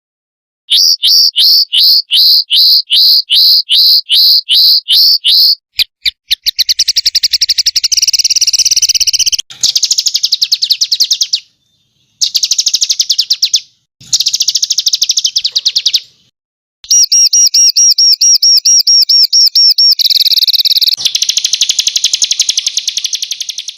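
Songbird calls in loud, rapid-fire runs: about a dozen sharp falling whistles in quick succession, then fast high trills and a looping warbled phrase, broken by sudden dead gaps where the recording is cut. This is a masteran training track of 'tembakan' (rapid shot) phrases.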